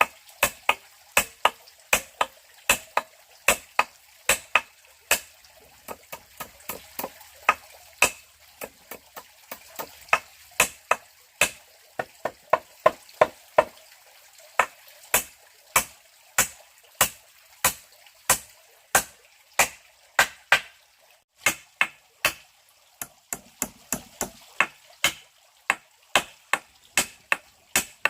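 A blade chopping in a steady rhythm of sharp strokes, about two a second, with a short break about 21 seconds in.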